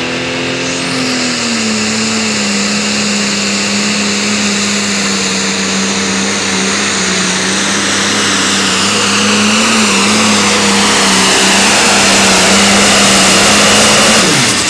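Light limited super stock pulling tractor's turbocharged diesel engine held at full throttle under load through a pull, with a high whine over the engine note. The sound grows louder toward the end, then the engine note drops away sharply near the end as the throttle is shut off at the end of the run.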